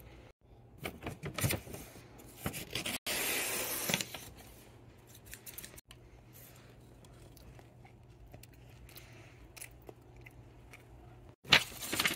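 Crisp crunching and crackling of an oatmeal chocolate chip cookie being broken and eaten, in a few short spells with quieter stretches between.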